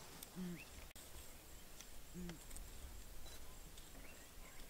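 Southern ground hornbill giving two short, deep booming notes about two seconds apart, over faint background noise and tiny high chirps of small birds or insects.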